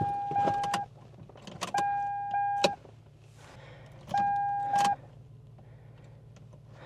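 1998 Toyota Tacoma beeping three times, each steady beep lasting under a second with short clicks around it, over a low steady hum. The beeps are a sign that the long-dead battery is taking enough charge from the jump to wake the truck's electrics, but not yet enough to start it.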